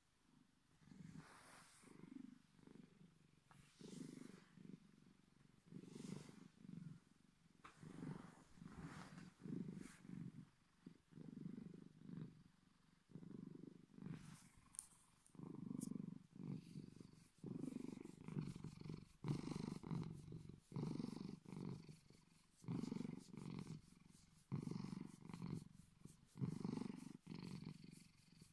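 Bengal cat purring deep and low, in steady pulses about a second apart, with a soft crackle joining in from about halfway.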